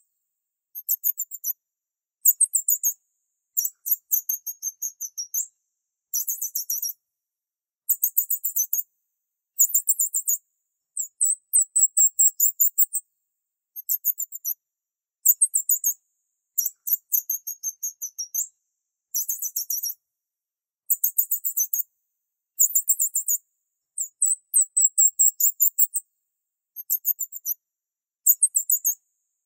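Very high-pitched, bird-like chirping: short trills of rapid repeated notes, coming in bursts about once a second with brief silent gaps between them.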